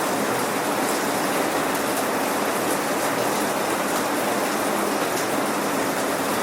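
Steady rain falling and pattering on surfaces, a dense even hiss with scattered drop ticks and no thunder.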